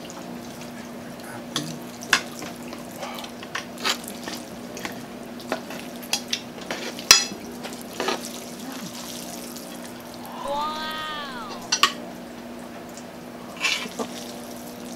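Metal tongs and forks clicking against plates and the wooden serving board while saucy palabok noodles are lifted and served, with wet squelching, over a steady low hum. A short voiced sound from one of the eaters, rising then falling, comes about eleven seconds in.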